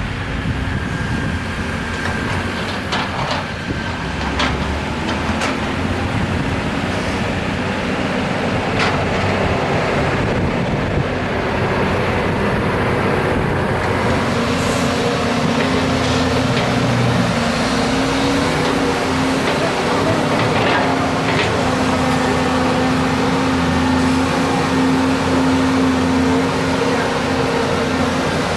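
Diesel engine of a Volvo EC210 crawler excavator running steadily under work, with several sharp knocks and clanks in the first half. The engine note grows louder and steadier about halfway through.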